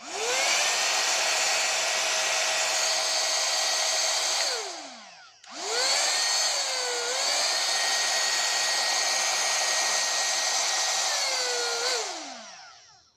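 Rotating hot-air brush's blower motor running with a steady whine and rush of air. It is switched off about four and a half seconds in and spins down in falling pitch. It is switched on again a second later and runs until it spins down near the end.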